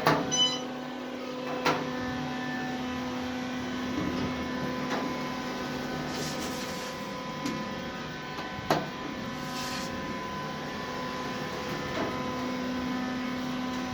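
Inside a hydraulic elevator cab in motion: a steady hum from the car's submersible pump drive, with a few short sharp knocks along the way.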